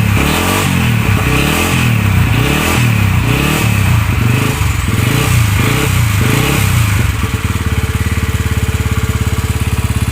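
Yamaha Y15ZR motorcycle's single-cylinder engine, rebuilt with a 65 mm big-bore block, running just after its first start since the rebuild. It is revved in repeated blips, about one a second, then settles to a steady idle about seven seconds in.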